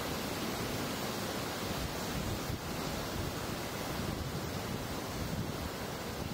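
Ocean surf breaking and washing up the shore, heard as a steady, even rush of noise.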